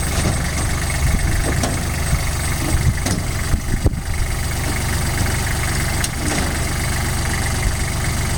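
Engine idling steadily, with a few short knocks and clanks over it.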